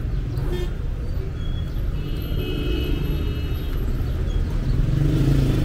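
City street traffic at a busy junction: car engines and tyres making a steady low rumble as vehicles pass close by, getting louder near the end. A thin high-pitched tone sounds for about a second and a half, about two seconds in.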